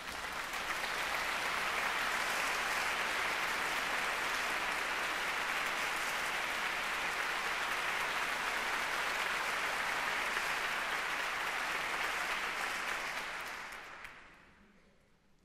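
Concert-hall audience applauding as the pianist walks on stage. The clapping swells within the first second, holds steady, then dies away about fourteen seconds in as he sits at the piano.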